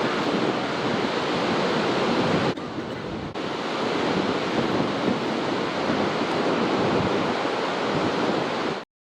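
Ocean surf breaking on a beach, a continuous rushing wash of waves. It drops off abruptly for under a second about two and a half seconds in, then resumes, and cuts off suddenly just before the end.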